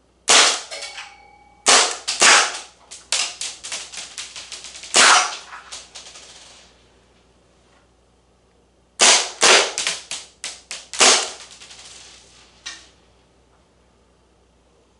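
Maruzen Walther PPK gas blowback airsoft pistol firing: two strings of sharp cracks, the first over roughly the first six seconds and the second starting about nine seconds in, with fainter clicks between the louder shots.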